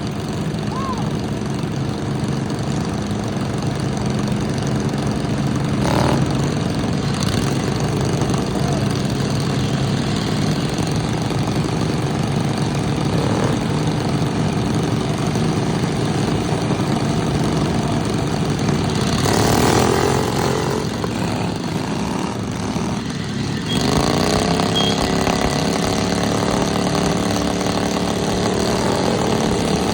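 Lawn mower engines running steadily, with a sharp knock about six seconds in and one engine revving up near the end.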